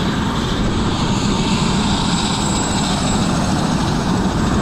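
Helicopter running close by: a steady, loud rush of rotor and engine noise with a thin, high turbine whine over it.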